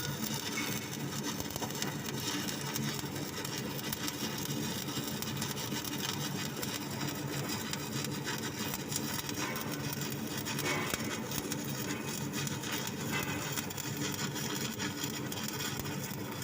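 Stick welding arc crackling and sizzling steadily as an electrode burns along a weld joint.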